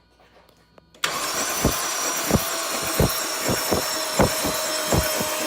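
Starter motor cranking a Toyota 1JZ VVTi inline-six with its spark plugs out to prime the oil system, so it spins without firing. It cuts in suddenly about a second in: a steady whir with a thin whine and a dull thump roughly every two-thirds of a second.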